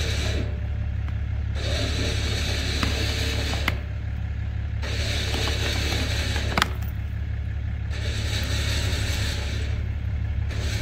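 Warn 16,500 lb winch pulling under load in bursts: its motor and drum run for a couple of seconds at a time with short pauses between, over a steady low truck-engine idle. A sharp crack comes a little past halfway as the stump's roots give way.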